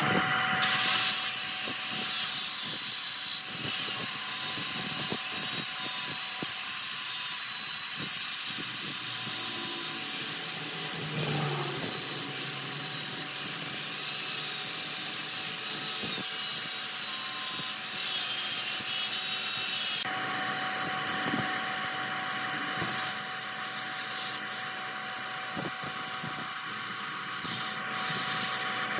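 Wood lathe spinning a wooden vase while the turning wood is sanded, with an angle grinder fitted with a sanding disc rubbing against it and later a hand-held abrasive, giving a continuous rasping hiss over a steady machine tone. The sound changes abruptly about eight and twenty seconds in.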